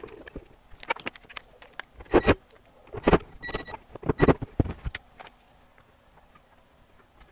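Cordless drill-driver whirring briefly as it drives a screw into an amplifier's sheet-metal bottom cover, among several sharp metal clanks and knocks from the panel being handled.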